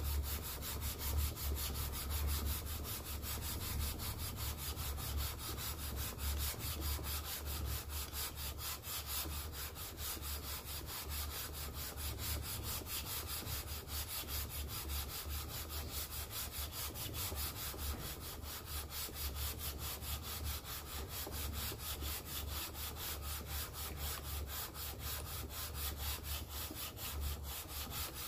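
Kawasaki FH721D aluminium cylinder head being lapped by hand, rubbed back and forth on wet sandpaper laid on a flat plate: a steady rasping scrape. The lapping flattens the head's badly warped gasket face.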